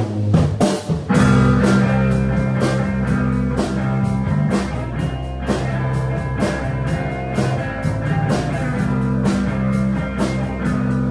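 A rock band of guitar, bass guitar and drum kit playing a song, without singing. The drums keep a steady beat under held bass notes, and the band comes in suddenly at the start.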